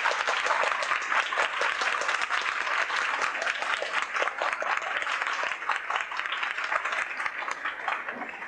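A roomful of people applauding, many hands clapping steadily; the applause stops at the very end.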